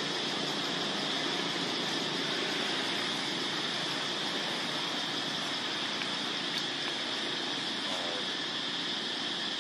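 Steady, unbroken insect drone in the trees, with a high hum holding at one pitch, typical of cicadas. A short faint call sounds about eight seconds in.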